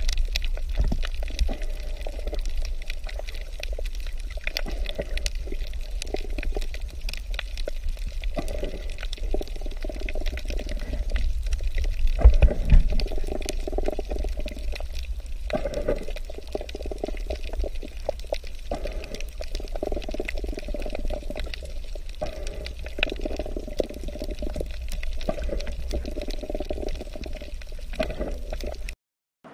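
Water heard through an underwater camera's microphone: a steady low rumble with sloshing, surging water noise and many small scattered clicks.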